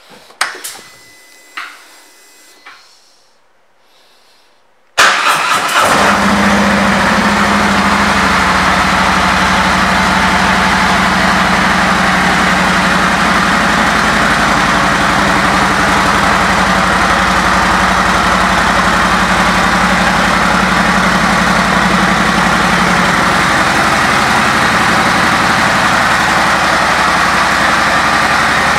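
A few faint clicks and a short beep, then about five seconds in a 2018 Harley-Davidson Street Glide Special's Milwaukee-Eight V-twin starts with a sudden burst and settles into a steady idle.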